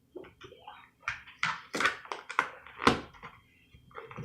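Crunchy slime being squeezed and worked by hand, giving a run of irregular crackles and pops, one sharper than the rest about three seconds in.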